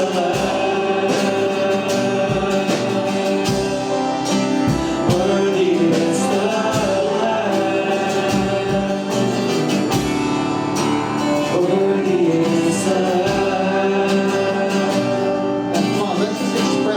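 Gospel worship song: voices singing over guitar-led accompaniment with a steady beat.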